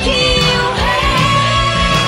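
Cantopop song: a woman singing over a pop backing band with drums and bass, holding one long note through the second half.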